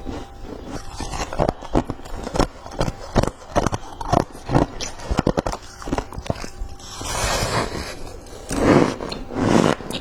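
White freezer ice being bitten and chewed: a quick run of crisp, sharp crunches, then a few longer, louder crunching chews near the end.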